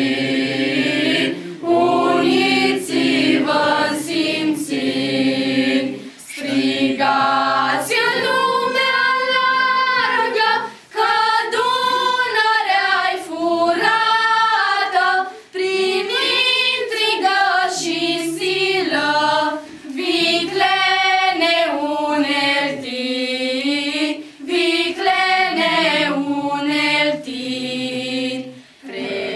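Small female choir singing a song unaccompanied, in long sung phrases with brief pauses between them.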